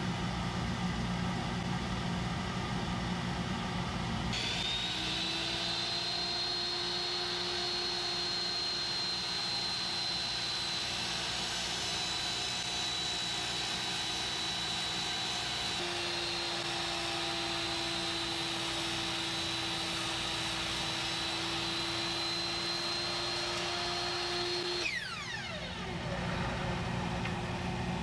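Electric power tool motor spinning up about four seconds in, running steadily with a high whine for some twenty seconds, then spinning down with a falling pitch. Under it is a steady loud rushing noise.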